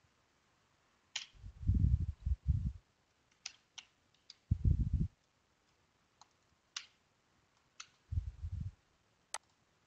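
Computer keyboard typing in short spells: scattered sharp key clicks, with three brief low thumps, the loudest sounds, about a second, four and a half seconds and eight seconds in.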